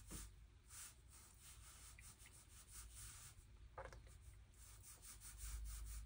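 Near silence with a series of short, faint swishes of a small watercolor brush stroked across watercolor paper, laying in a thin wash.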